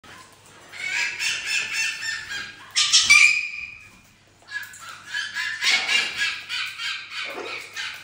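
Parrots giving rapid, pulsing squawks and chatter in quick runs, with one louder squawk about three seconds in and a short pause near the middle.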